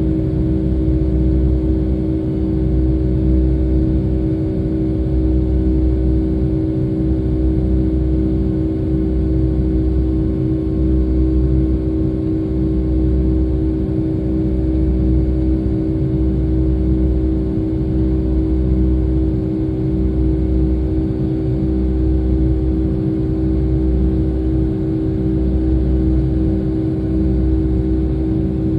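Pratt & Whitney PW2000 turbofans of a Boeing 757-200 heard from inside the cabin during the climb after takeoff: a loud, steady drone with a humming tone over a deep rumble that swells and fades every second or two.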